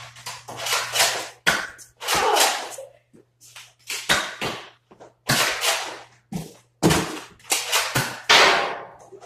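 Nerf blasters firing in quick, irregular shots, with foam darts hitting and clattering, a dozen or so sharp noisy bursts in all, over a steady low hum.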